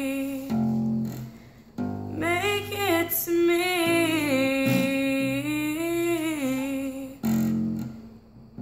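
Acoustic bass guitar plucked in slow single notes, with a young woman's voice singing a long wordless melody over it from about two seconds in. A last bass note rings out and fades near the end.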